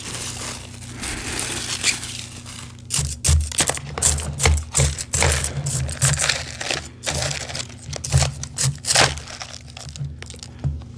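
A fork digging and scraping through refrozen powdery ice in a plastic tub: a dense run of crunchy, crinkling scrapes and knocks, thickest from about three seconds in.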